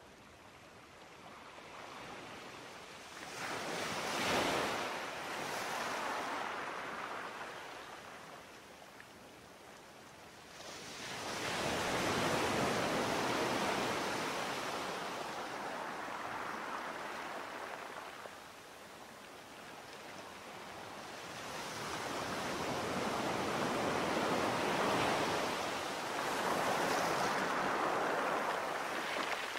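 Sea waves surging and washing in: three swells of surf noise, each rising and fading over several seconds, the second and third longer than the first.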